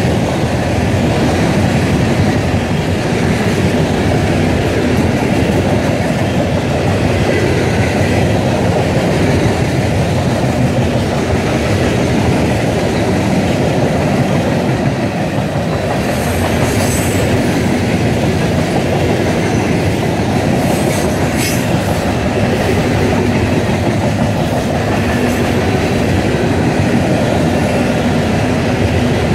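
Loaded coal hopper cars of a freight train rolling steadily past close by: a loud, continuous rumble and clatter of steel wheels on the rails, with a few brief sharp high sounds around the middle.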